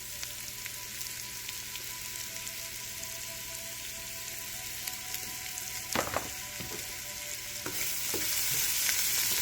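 Jackfruit seed pieces sizzling and crackling as they fry in hot oil in a non-stick pot. There is a brief knock about six seconds in, and the sizzle gets louder near the end.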